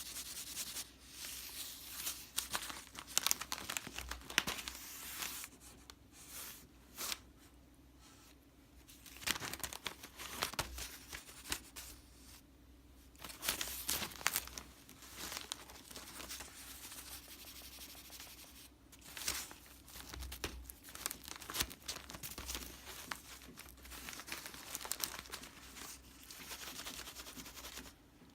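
A cat playing with a crinkly toy: irregular crinkling and rustling in short bursts, with brief pauses between them.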